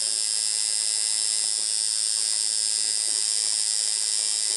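Tattoo machine buzzing steadily, a high-pitched hum that runs without a break.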